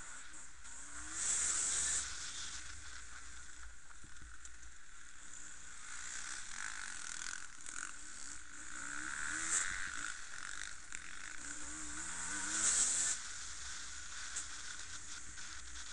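Distant enduro motorcycles, their engines revving up and down several times with a high buzz, heard on a phone microphone. Two louder bursts of rushing noise come about a second in and again late on.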